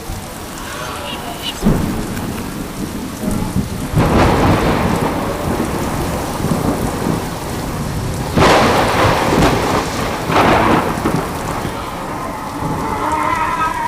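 Thunderstorm: steady rain with several crashes of thunder, the loudest about four and eight and a half seconds in.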